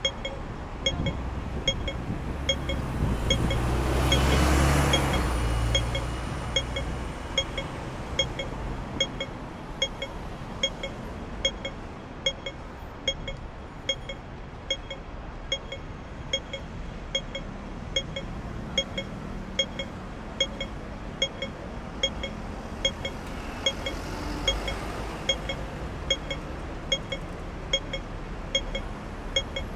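Pedestrian-crossing audible signal beeping in an even rhythm, a little more than once a second, over a steady traffic hum. A vehicle passes about four seconds in, the loudest sound, and another, quieter one passes near the end.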